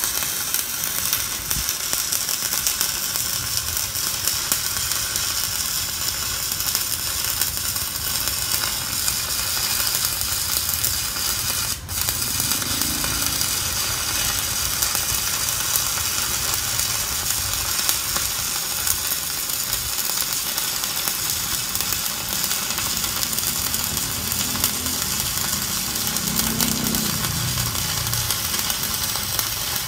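Stick-welding arc from a Kenmax ARC 200 inverter welder, crackling and sizzling steadily as an electrode is burned along a continuous bead. The arc breaks for an instant about twelve seconds in.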